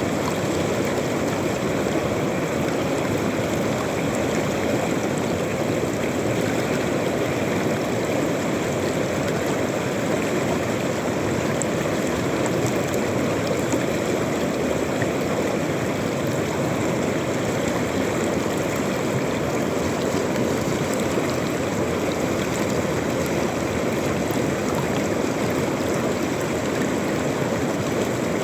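River water rushing steadily over stones, a constant even roar.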